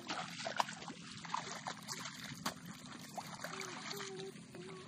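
Shallow muddy paddy water splashing and trickling as hands scoop in it and legs wade through it, with many small splats and clicks.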